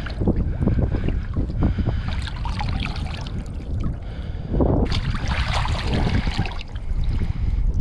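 Wind buffeting the microphone, with water splashing and dribbling as a caught blackfish (tautog) is dipped in the sea beside a kayak, getting louder for a moment around the middle.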